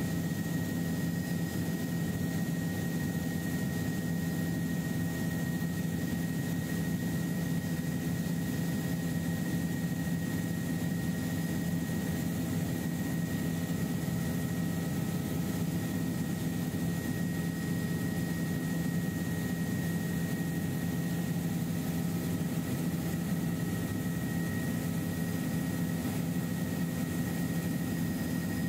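Helicopter engine and rotors heard inside the cabin in cruising flight: a steady low drone with a thin, constant whine above it.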